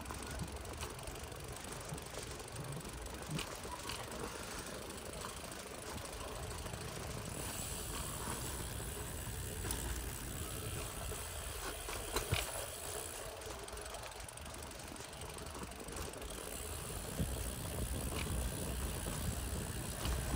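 Brompton folding bicycle rolling along a concrete sidewalk: steady tyre and riding noise with a low rumble, light rattles and a few sharp clicks.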